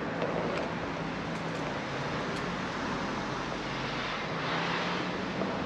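Steady rushing noise of travel along a concrete sidewalk, with a low droning hum underneath, swelling slightly about four seconds in.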